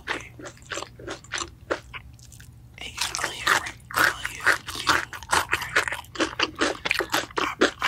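Close-up chewing of crunchy crumb-coated fried chicken: rapid crisp crackling crunches in the mouth. They thin out briefly about two seconds in, then come thick and fast from about three seconds on.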